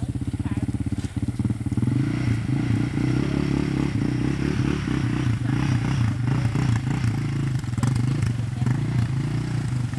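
Off-road 4x4 engine running with an even pulsing beat that picks up to a louder, steadier run about a second or two in, with clattering and scraping over rough ground.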